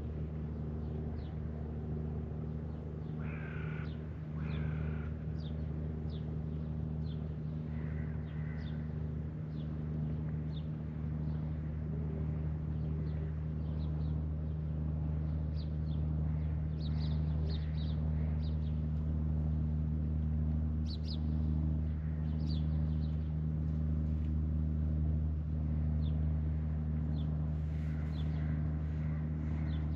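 A steady low mechanical hum made of several even tones, with birds chirping in short high notes throughout and two harsh double calls a few seconds in.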